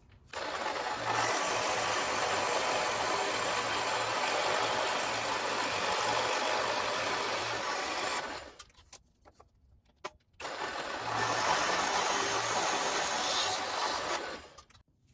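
Craftsman drill press with a 1 1/4-inch Forstner bit boring into a wooden block, the motor humming under the cutting noise. It runs for about eight seconds, stops for about two seconds with a few clicks, then bores again for about four seconds, as the hole is drilled halfway from one side and finished from the other to avoid blowout.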